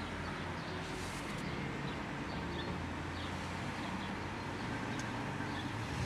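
Street ambience: a steady low hum of distant traffic with faint, short bird chirps, and a light click about five seconds in.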